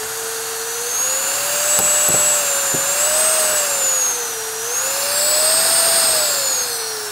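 High-speed electric compressor motor for a ventilator prototype running: a whine over rushing air that rises and falls in pitch twice as its speed changes, then drops away near the end.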